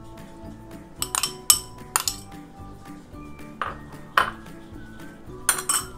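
A metal spoon clinking sharply against metal cookware several times while chopped onion is spread over mashed potato, in small groups about a second in, around four seconds in and near the end, over steady background music.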